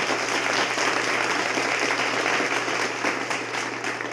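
Crowd applause, a dense patter of many hands clapping that thins slightly near the end, with a steady low hum beneath.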